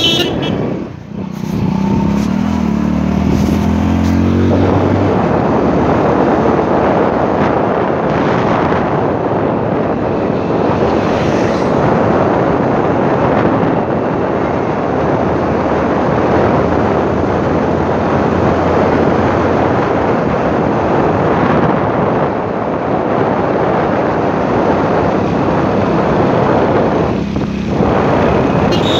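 Wind rushing over the microphone of a moving motorcycle, with the engine running under it. An engine note climbs in pitch for a few seconds near the start.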